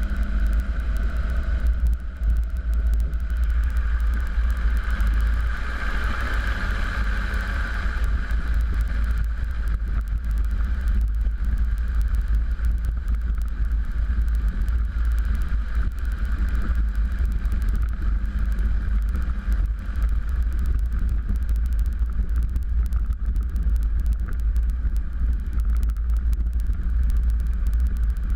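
Cozy Mk4's pusher piston engine running steadily at low power during the taxi after landing, heard from the cockpit with a heavy low rumble. It swells a little between about four and eight seconds in.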